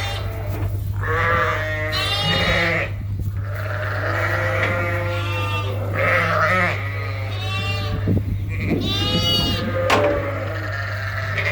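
A flock of ewes and lambs bleating over and over, high thin lamb calls mixed with deeper ewe calls, as mothers and lambs call to find each other. A steady low hum runs underneath.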